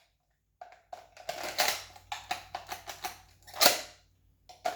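Plastic and metal clicks and clacks of a Glock 34 pistol being handled in a Safariland ALS retention holster. A run of quick knocks ends in one sharp snap a little before the end.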